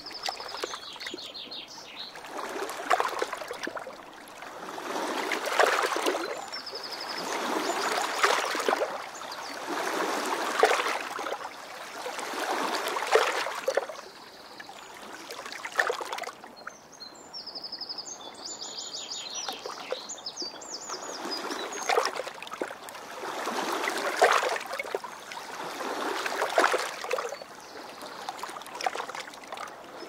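River water washing in rhythmic swells that rise and fall about every two and a half seconds, with short high bird trills breaking in several times.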